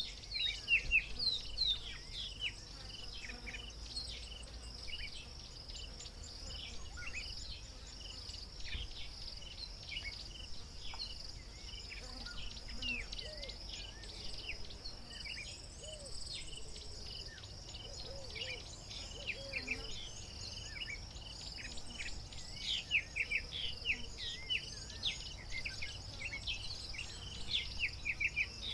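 Bush ambience: a steady high-pitched insect buzz with many small birds chirping, the chirps thickest near the start and again near the end.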